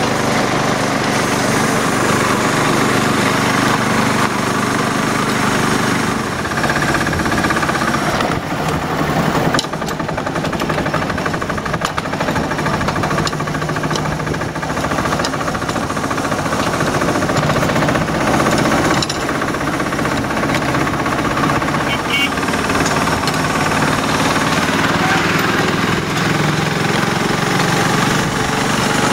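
Small engine of a ride-on miniature railway train running steadily as it pulls the train along, with a rattling, knocking vibration from the cars on the track.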